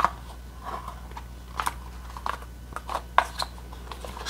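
Earbuds and their cable being handled in a black plastic packaging tray: a string of scattered small clicks and rustles, about half a dozen, as the earbud is pried out.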